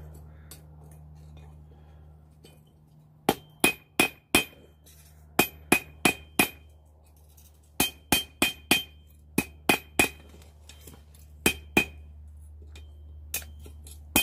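Hand hammer striking hot coil-spring steel on an anvil, about twenty blows in quick bursts of two to five, each with a bright metallic ring. A steady low hum runs underneath.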